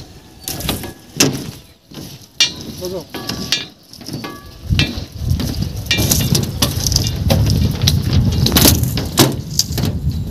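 Footsteps knocking and clattering on the deck of a cable suspension footbridge, with wind rumbling on the microphone, stronger in the second half.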